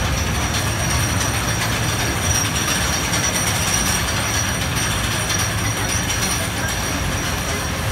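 Steel roller coaster train running on its track, a steady loud noise with a faint high-pitched whine.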